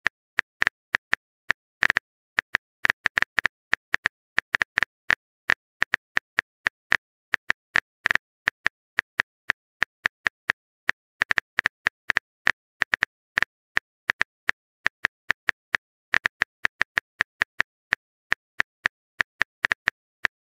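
Simulated phone-keyboard tap clicks from a texting-story app as a message is typed out: short, sharp and irregular, about four or five a second.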